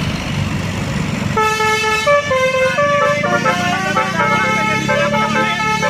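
Bus's Basuri 'telolet' multi-tone air horn playing a stepping, several-note tune, starting about a second and a half in, over the rumble of a bus engine and road noise.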